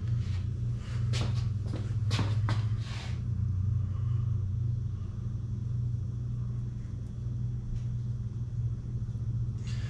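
A steady low hum, with a few short clicks and taps in the first three seconds.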